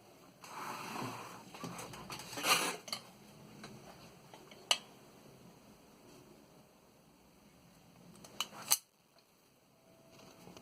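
1929 L.C. Smith & Corona No. 8 Secretarial typewriter's metal mechanism being worked. A rattling, sliding clatter fills the first three seconds. A few sharp metallic clicks follow: one about halfway and two close together near the end.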